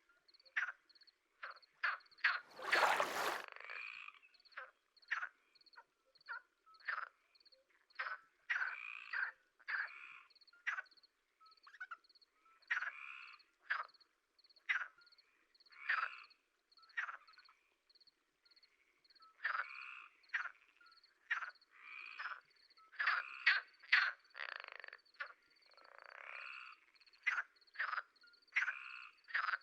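A chorus of short animal calls. A fast, regular high-pitched pip repeats two or three times a second, under irregular lower calls, one of them louder and longer about three seconds in.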